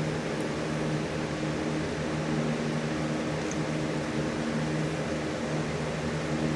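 Steady machine hum, an even rushing noise with a low drone.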